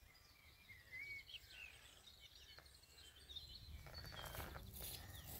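Faint wild birdsong, many short chirps and whistles, over a low rumble of wind on the microphone that grows louder about four seconds in.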